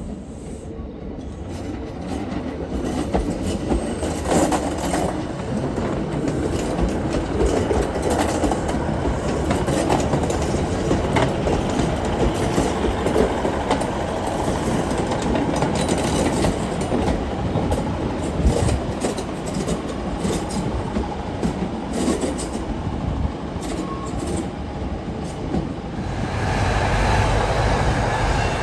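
Northern Class 156 Super Sprinter diesel multiple unit pulling in along the platform: its diesel engines run while the wheels click over the rails, the sound growing louder over the first few seconds. About two seconds from the end the sound changes to a louder, steadier rumble of another train on the main line.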